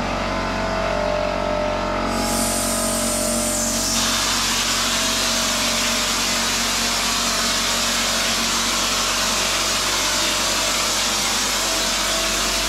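Small air compressor running steadily, with the hiss of a drywall texture hopper gun spraying mud onto a ceiling. The air hiss comes in about two seconds in and becomes a fuller, louder spray about two seconds later.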